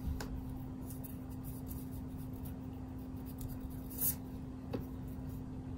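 Pencil scratching on drawing paper in short strokes, with an eraser rubbing on the paper; the loudest rub comes briefly about four seconds in.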